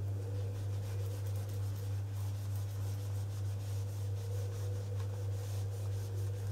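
Whiteboard eraser wiping marker ink off the board in faint, repeated strokes, over a steady low hum.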